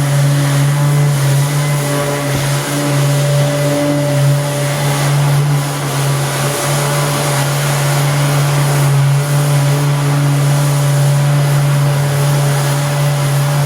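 A motor running steadily, a constant loud hum with an even hiss over it.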